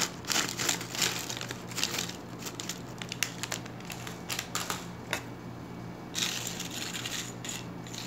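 Tortilla chips crackling and clattering as they are shaken out of a crinkly plastic snack bag onto a bowl of lettuce. Sharp crackles run for about five seconds, then after a brief lull the bag crinkles again about six seconds in.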